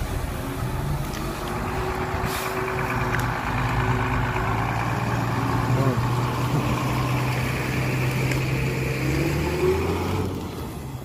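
Hyundai 4.5-ton dump truck's diesel engine running steadily under load while it tips and moves off. Its note rises about nine seconds in, then fades as the truck pulls away.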